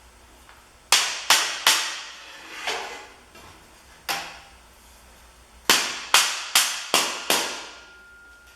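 Rawhide mallet striking a half-inch square steel ring, driving its tight half-lap notched joint into place. Three quick blows about a second in, two single blows, then a run of five about 0.4 s apart, each ringing briefly.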